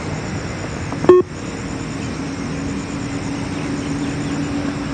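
A single short electronic beep from the Yo-Yo intermittent recovery test audio about a second in, the timing signal for the shuttle run, over a steady low hum.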